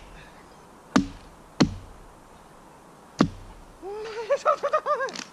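Axe chopping into wood: three sharp strikes, two close together about a second in, a third after a short pause. Near the end comes a quick run of rising-and-falling pitched calls.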